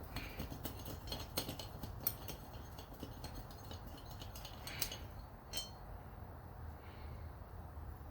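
Faint scattered clicks and light clinks, as small metal parts are handled, most of them in the first two seconds, over a low background hum.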